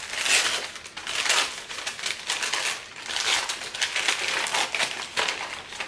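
Tissue paper crinkling and rustling as a gift is pulled out and unwrapped by hand, in uneven crackly handfuls.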